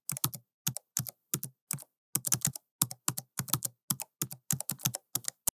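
Computer keyboard typing sound effect: an uneven run of quick keystroke clicks, several a second in short clusters.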